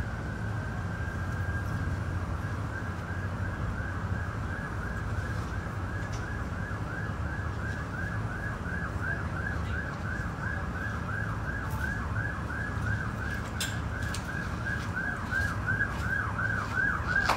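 Emergency-vehicle siren heard from a distance: a steady tone for the first couple of seconds, then a fast rising-and-falling yelp of about three sweeps a second. A steady low rumble runs underneath.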